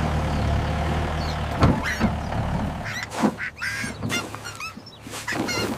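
Small excavator's engine running steadily with a low hum while the soil is filled back in, dipping briefly about four seconds in. Short high animal calls sound over it several times.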